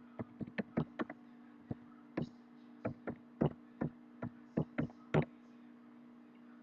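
Computer keyboard typing: a quick, irregular run of about seventeen keystrokes that stops a little past five seconds in, over a steady low electrical hum.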